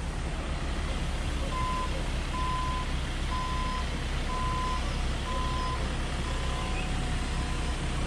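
Ford Transit van's reversing alarm beeping, a single high beep about once a second starting a second and a half in, over the steady low hum of the van's engine running as it backs up.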